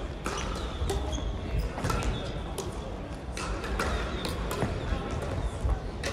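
Crossminton rackets striking the speeder and court shoes squeaking and thudding on a sports-hall floor, with sharp hits coming about twice a second.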